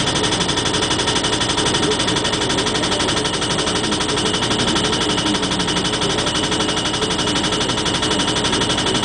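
Pile-driving hammer pounding a 2-inch steel pipe pile into the ground with rapid, steady, evenly spaced blows.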